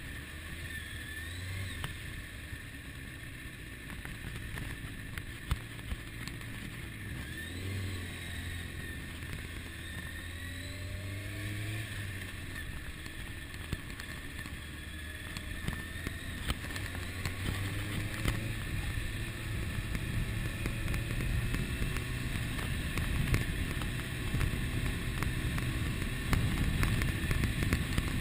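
2001 Kawasaki ZX-6R's inline-four engine running at low speed, with light throttle blips that rise and fall in pitch. In the second half, wind noise on the microphone builds and grows louder as the bike picks up speed.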